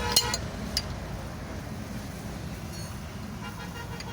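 A vehicle engine running steadily with a low rumble, with a few sharp clicks or taps in the first second.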